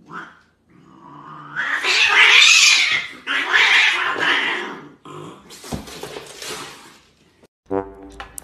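A white cat and a hairless Sphynx cat fighting, with harsh cat cries that are loudest about two seconds in and die down after about five seconds. A brass tune starts near the end.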